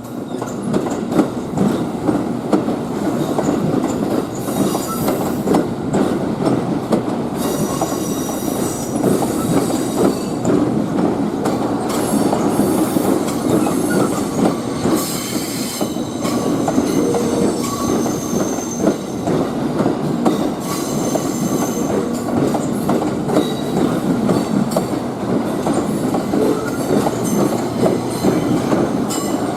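Electric train rolling through depot tracks: a steady loud rumble with rapid clacking of wheels over rail joints and points, and high-pitched wheel squeal that comes and goes.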